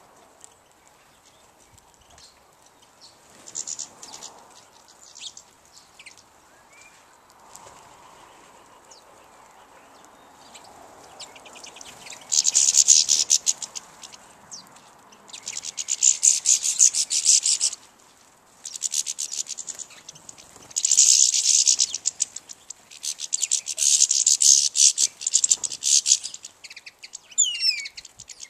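Small songbird singing in rapid, high trills, several bouts each a second or two long starting about twelve seconds in, after a few faint chirps. Near the end come a few thin calls that slide in pitch.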